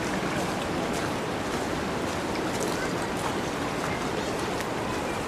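Steady rush of fast-flowing water, with a few faint ticks.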